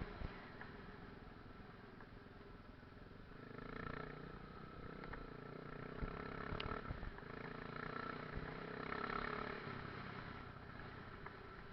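Faint enduro motorcycle engine running, rising and falling in two swells, about four and nine seconds in, with a few light knocks.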